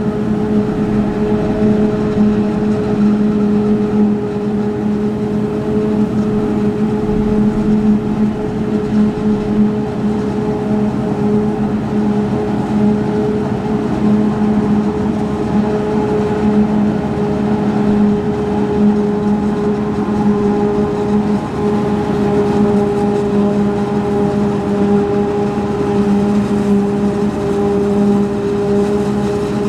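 Claas Jaguar 840 forage harvester chopping maize, its engine and chopping gear running steadily at working speed, an even machine hum that holds the same pitch throughout.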